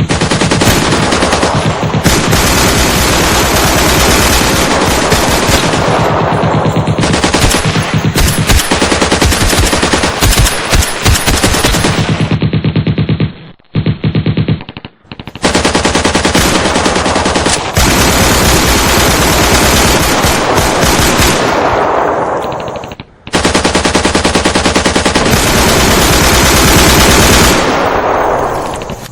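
Machine-gun fire in long, rapid automatic bursts, a combat sound effect. About halfway through the firing breaks off for a few seconds with only a couple of single shots, then resumes. It dips briefly again later and tails off near the end.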